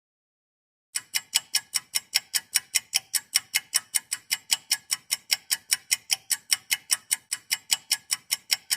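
Clock-ticking sound effect: sharp, even ticks at about five a second, starting about a second in.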